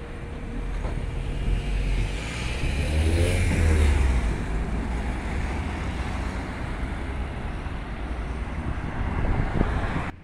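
Street traffic on a city avenue: a motor vehicle drives past close by, loudest about three to four seconds in, over a steady traffic rumble. The sound drops off suddenly near the end.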